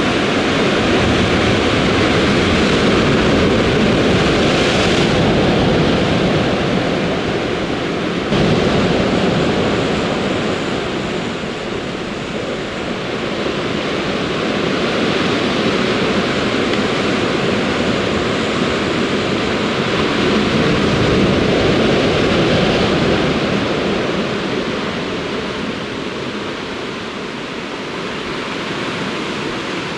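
Sea surf breaking against a rocky shore: a steady rush of churning water that swells and eases every several seconds.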